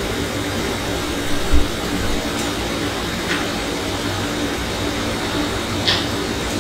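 Steady hissing background noise with a low thump about one and a half seconds in and a few faint clicks later on.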